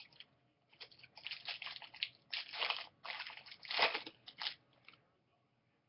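Crinkling and rustling from handling trading cards and their pack wrapper, in a string of scratchy bursts that stops about a second before the end.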